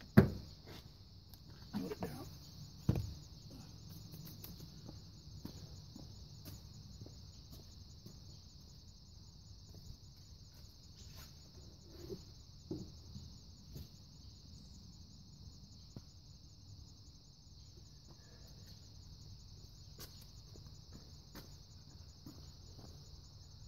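Car battery being lifted out of its tray in the engine bay: a sharp knock just as it comes free, two duller knocks over the next three seconds, and a few light clinks later. A steady high insect trill, like crickets, runs underneath throughout.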